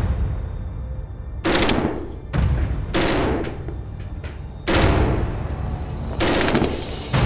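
HK21 belt-fed 7.62×51mm machine gun firing on full auto in about five short bursts, a second or so apart.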